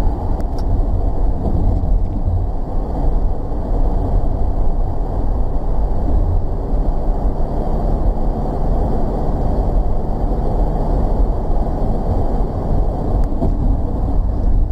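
Steady road and engine noise heard inside a van's cabin while cruising at highway speed: an even, deep rumble with no sudden sounds.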